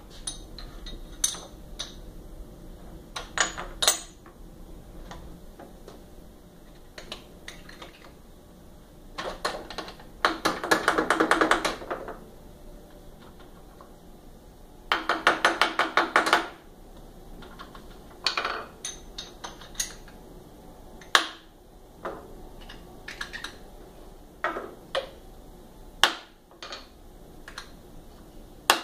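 Hammers tapping a workpiece down to seat it in a milling-machine vise: scattered single knocks, with two runs of quick repeated taps lasting a second or two each, about a third and halfway through. Near the end a plastic-faced hammer taps the block.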